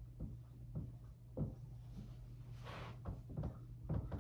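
Dry-erase marker writing on a whiteboard: a run of faint taps and short strokes, with one longer scratchy stroke just under three seconds in, over a steady low hum.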